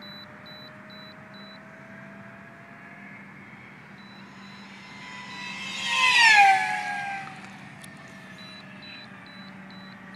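Electric Moray RC plane making a high-speed pass: the whine of its 1500kv motor and 7x5 APC propeller grows louder as it approaches, peaks about six seconds in, then drops in pitch as it flies past and fades away.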